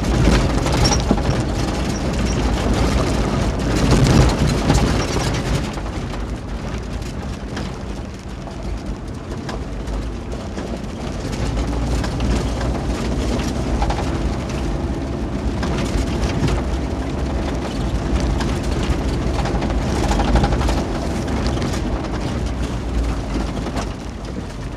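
A Kia 4x4 SUV creeping up a rocky gravel track, heard from inside the cabin: a steady engine and drivetrain hum under the crunch of tyres over loose stones, with scattered knocks and clicks as it jolts over rocks.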